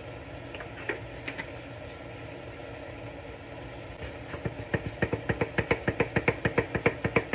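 Fast, even run of sharp taps, about six a second and growing louder, as a spice container is knocked against the pan to get the seasoning out. A few single clicks come earlier, and a steady kitchen hum runs underneath.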